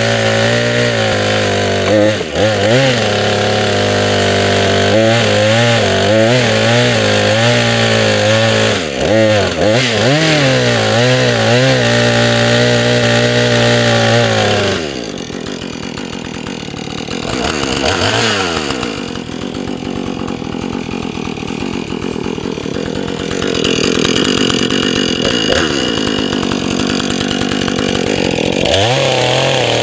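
Chainsaw running hard, its pitch rising and falling again and again as it is worked. About halfway through it drops to a lower, quieter running, then picks up again toward the end.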